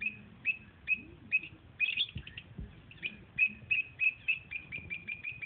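Baby bird cheeping: short high chirps repeated over and over, coming faster in the second half.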